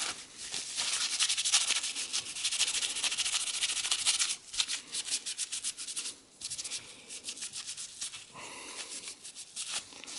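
A paper towel damp with rubbing alcohol scrubbed rapidly back and forth over a CPU heatsink, wiping off old thermal compound. It makes a dry, scratchy rubbing with two short pauses and grows softer in the last few seconds.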